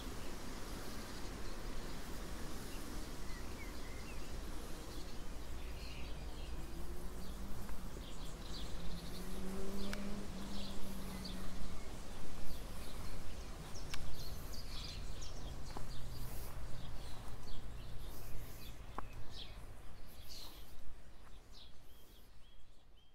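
Bumblebees buzzing around flowering rhododendron, one hum drawing close and wavering in pitch as it flies about, over a low wind rumble with birds chirping. The sound fades out at the end.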